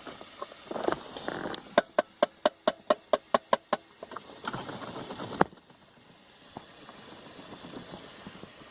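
A rapid run of about a dozen pitched electronic ticks, about six a second, from the 2000 Camaro Z28's dash warning chime, which is sounding again now that the body control module has power. The ticks are followed by a single sharp click.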